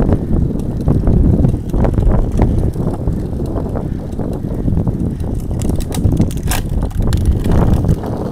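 Road bike riding at speed, heard from a handlebar-mounted camera: a steady low rumble of wind on the microphone and tyres on cracked tarmac, with scattered sharp clicks and rattles from bumps in the road.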